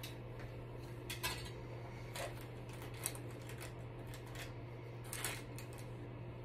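Makeup items being picked up and set down on a bathroom counter: scattered light clicks and clinks of hard containers and tools, over a faint steady low hum.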